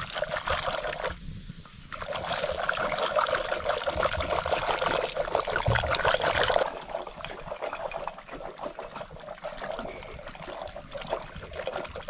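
Bean curry sloshing and bubbling as it is stirred with a wooden stick in an aluminium pressure-cooker pot on a wood fire. The wet, crackly sound is loudest for the first six seconds or so, then drops off sharply and goes on more quietly.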